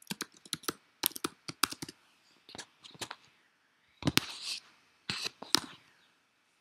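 Typing on a computer keyboard: a quick run of key clicks, then scattered clicks and a louder clatter about four seconds in.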